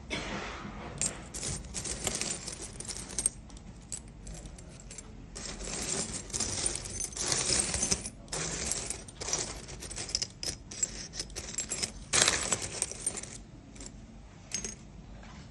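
A hand sifting through a heap of thin metal pet pendants and dog tags, the pieces clinking and jingling against each other in irregular bursts. The loudest burst of jingling comes about three-quarters of the way through.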